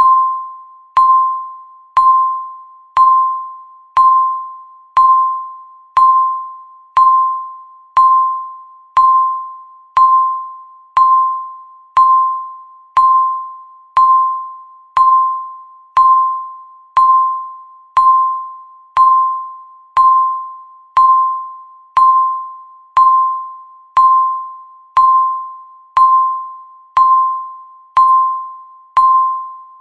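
Countdown timer's electronic tick: a short, clear ping at about 1 kHz sounding once every second and fading quickly, repeated steadily, marking each second of the countdown.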